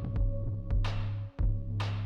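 Background music: an electronic track with a steady bass line and a beat marked by hissy cymbal-like swells about once a second.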